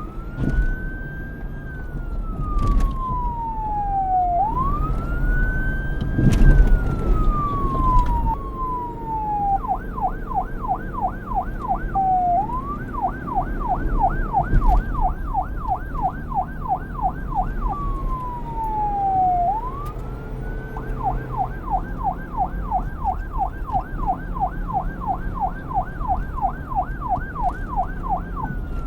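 Police car siren switching between a slow wail, rising and falling over a few seconds, and a fast yelp warbling about four times a second, over a low rumble. It wails at first, breaks into the yelp about nine seconds in, wails briefly again around eighteen seconds, then yelps steadily until a wail begins near the end.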